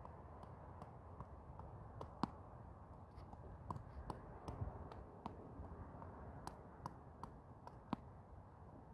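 A jump rope slapping a concrete pad in sharp, uneven clicks, about one or two a second, over faint steady background noise.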